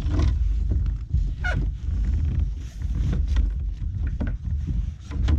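Wind buffeting the microphone as a low, steady rumble, with scattered short knocks and splashes as water is scooped onto a fish measuring board in a kayak.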